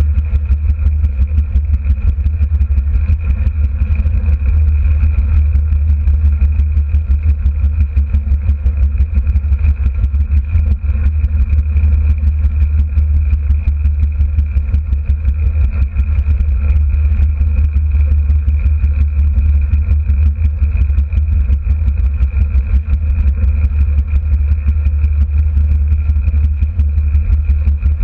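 Derny pacing motorbike's small engine running steadily at constant speed, a heavy low rumble with a steady high whine over it.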